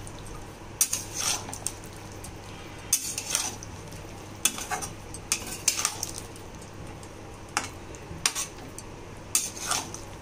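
A spatula scraping and clinking against a pan at irregular intervals as chicken in gravy is stirred, mixing in cornflour slurry to thicken it. A steady low hum runs underneath.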